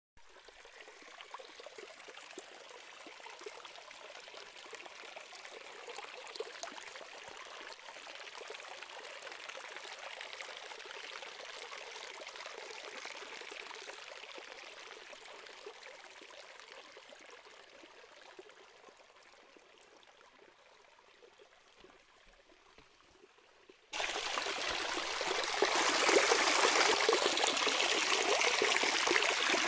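Running water trickling steadily, fading down over several seconds, then a sudden cut about three quarters of the way through to much louder, fuller running water.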